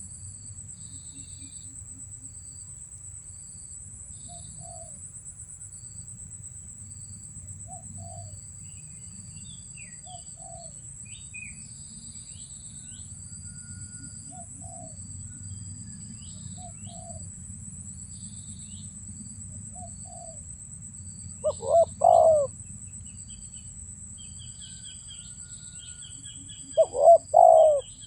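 Spotted doves cooing: soft coos repeat every second or two, and two loud coos come close to the microphone, the first about two thirds of the way in and the second near the end. Under them runs a steady high insect trill, with small birds chirping.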